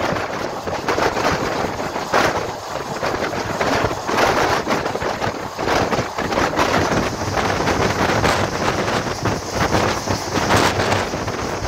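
Indian train running at speed, heard from its open window: a steady rumble of wheels on rails with a rapid, irregular clatter, and wind buffeting the microphone.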